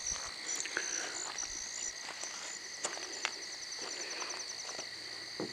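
A night-time chorus of insects: steady high-pitched trilling with a fast, evenly repeating chirp above it, several chirps a second. A few faint clicks and scuffs are scattered through it.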